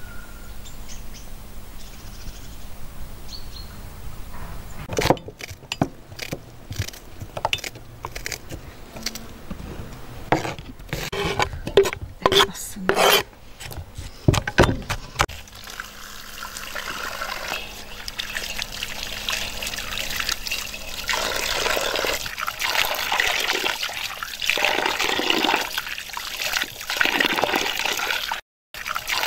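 A cleaver chopping onions in an enamel bowl, a run of uneven knocks. Then water runs in a thin stream into a steel bowl as hands rub and wash pieces of meat under it, a steady splashing rush.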